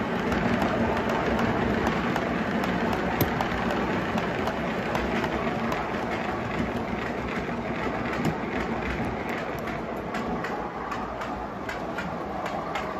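O gauge model coal train of hopper wagons rolling along the track: a steady rumble of wheels with rapid clicking over the rail joints. The clicks come thicker in the second half, and the sound eases off slightly as the train moves away.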